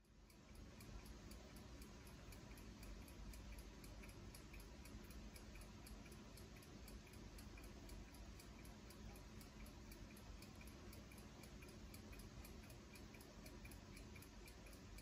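Faint, steady ticking of a timepiece, several ticks a second, over a low hum.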